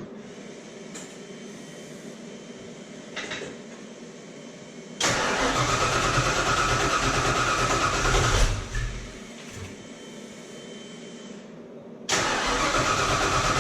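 Fox-body Ford's starter cranking the engine in two tries. The first runs about three and a half seconds and stops; the second begins about three and a half seconds later and is still going at the end. This is the intermittent crank-but-no-start fault, which the owner suspects may be fuel-related.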